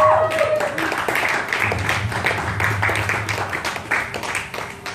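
Audience applause: many hands clapping irregularly, thinning out and growing quieter near the end. A gliding tone dies away just as the clapping begins.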